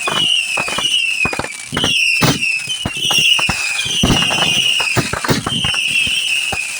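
Consumer fireworks going off: a rapid run of short whistles, each falling slightly in pitch, about two a second, over irregular crackling pops and bangs.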